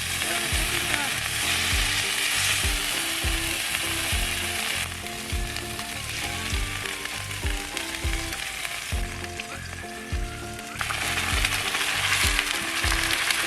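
Food sizzling and frying in a hot pan, louder at first, easing off about five seconds in and flaring up again near the end. Background music with a steady beat plays throughout.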